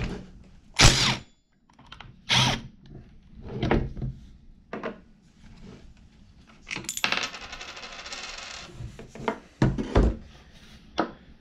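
Cordless impact driver hammering in short bursts on the left-hand-threaded clutch of an Echo CS-2511T chainsaw to spin it off, with a longer rapid rattling run about two-thirds of the way in. Loose steel parts (clutch, washer, drum) clatter down onto a wooden table between the bursts.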